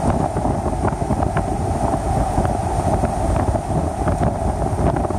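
Steady wind rush and road noise of a car driving, with wind buffeting the microphone.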